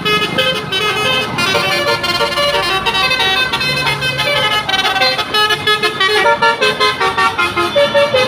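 Tour bus's 'basuri' telolet musical air horn playing a fast tune of short, stepped notes. Near the end the notes come in quick pulses.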